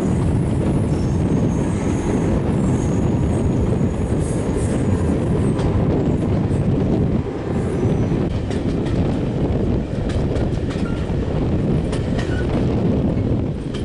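A diesel locomotive hauling a passenger train, heard from an open carriage window: a steady heavy rumble of engine and wheels on the track, with scattered clicks from the rails in the second half.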